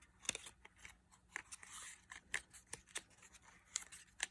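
Perfume packaging being handled and opened by hand: scattered light clicks and taps, with a short soft rustle about a second and a half in.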